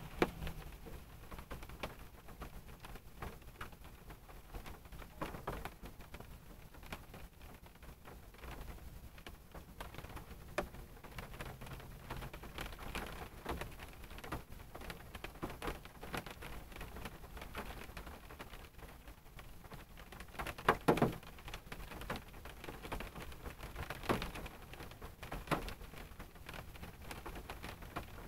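Raindrops falling on a car, heard from inside the cabin: scattered, irregular taps over a soft background hiss. There is a cluster of louder taps about two-thirds of the way through, and another loud tap a few seconds later.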